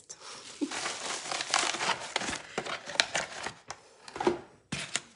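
Bubble wrap and packing paper crinkling and rustling as they are handled, with many small irregular crackles and a brief pause near the end.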